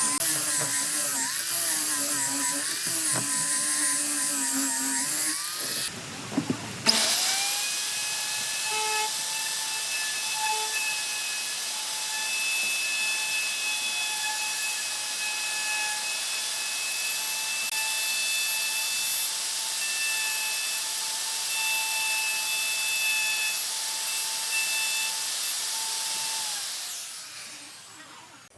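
Electric power tool running with a high whine, its pitch wavering under load at first. After a brief break about six seconds in, it spins back up and runs at a steady pitch, then winds down near the end.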